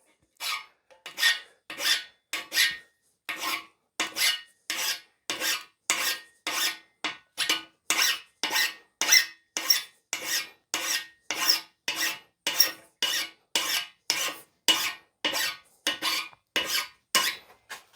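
Hand file cutting a 45-degree bevel on the tip of a punch made of coil-spring steel: even rasping strokes, a little under two a second.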